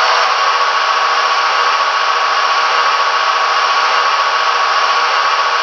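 Sound decoder of an HO-scale Athearn Genesis GP40-2L model locomotive playing its diesel prime mover held at full RPM (throttle notch 8), a steady engine sound with a steady whine, thin and tinny through the model's small speaker.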